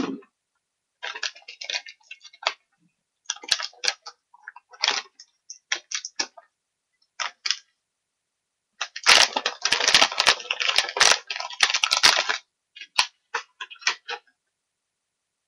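Small dog chewing a hard dog biscuit: irregular bursts of crunching and crackling, with a longer unbroken stretch of crunching about nine seconds in.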